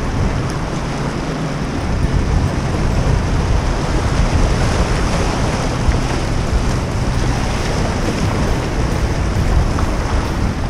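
Small waves washing and splashing against the stone blocks of a jetty, a steady wash of surf with wind on the microphone.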